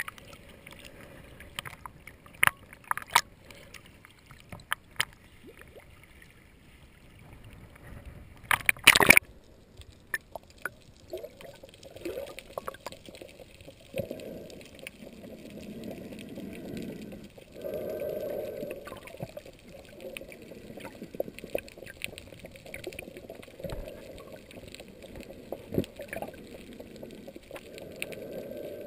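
Sea water slapping and splashing against a camera held at the surface, with sharp clicks of small waves. About nine seconds in comes a loud splash as it goes under, then muffled underwater sound with slow swells of low rushing water.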